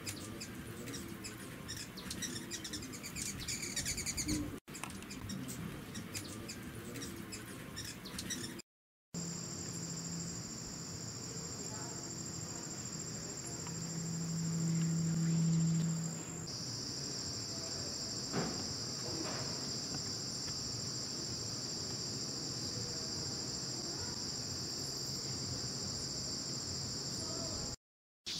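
Steady, high, shrill insect drone from insects such as cicadas or crickets, with a slight step in pitch about 16 seconds in. Before it, in the first part, rapid high chirping.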